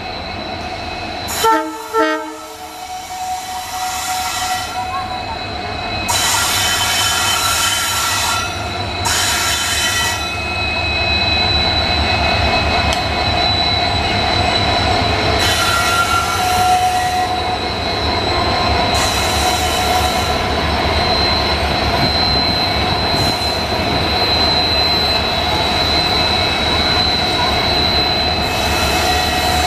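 Twin EMD WDG4 diesel locomotives hauling a freight train sound two short horn blasts about a second and a half in. They then pass close by with the steady rumble of their two-stroke V16 engines and running gear, and high wheel squeal comes and goes.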